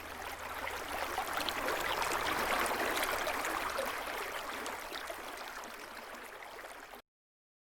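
Running water of a stream, a steady rushing hiss that swells, then fades, and cuts off suddenly near the end.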